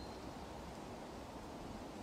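Steady, soft woodland ambience: an even hiss of wind through the trees, with no distinct events.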